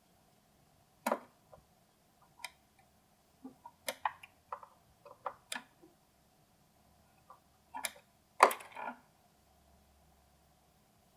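Irregular clicks and knocks of small hardware and tools being handled, about a dozen sharp taps, with two louder clatters near the end.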